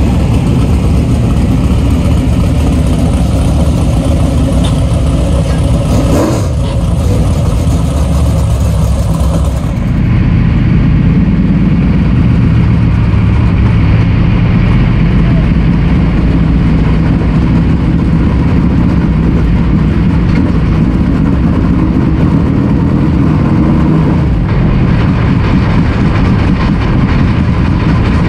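Dirt late model race car's V8 engine running loud and steady. From about ten seconds in it is heard from inside the cockpit on hot laps; before that it is engine noise in the pits.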